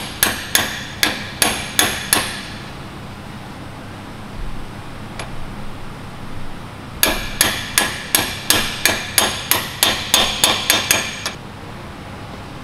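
Hammer blows driving a new pinion seal into a Salisbury differential housing, each a sharp strike with a short ring. About six evenly spaced blows open, then after a pause a faster run of around fifteen blows, about four a second, that stops suddenly near the end.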